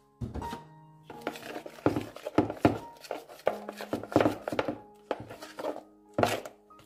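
Bare hand mixing a wet batter of egg, gram flour and milk in a plastic bowl: a run of wet strokes, two or three a second, with a short lull about five seconds in.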